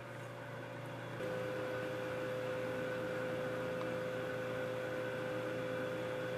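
Room tone: a steady electrical hum with a faint hiss, and a steady higher-pitched tone that comes in about a second in and holds.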